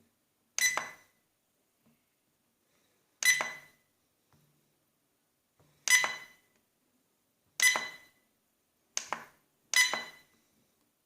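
Six sharp taps on a hard object, each with a brief ringing clink, spaced unevenly about one to three seconds apart. The last two come close together near the end.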